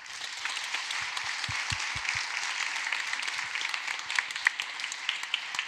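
Audience applauding: a steady patter of many hands clapping, with a few louder single claps standing out in the second half.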